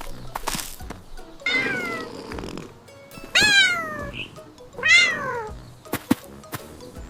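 Cartoon cats meowing: three meows about a second and a half apart, each falling in pitch, followed by a few short clicks.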